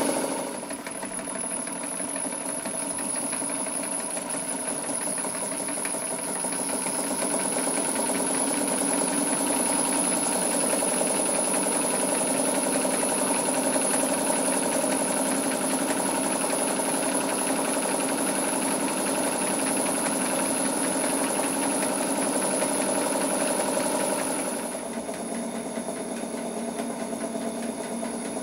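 Model live-steam engine running steadily under steam, a fast, even beat of small exhaust strokes with a faint steady high whine above it. Near the end it becomes quieter and duller.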